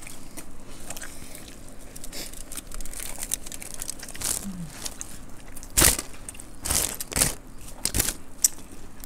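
Eating sounds: puffed rice (muri) being crunched and chewed and scooped by hand from the platter, a run of short sharp crunches that grow louder and denser in the second half.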